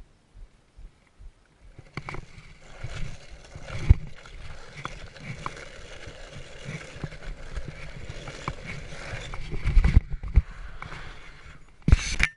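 A board's wheels rolling fast over a loose dirt trail. It gives a continuous rough, gritty rolling noise full of knocks and jolts from bumps. The ride is quieter, with only scattered thumps, for the first two seconds, and the loudest hits come at about four and ten seconds in, with a final loud burst near the end.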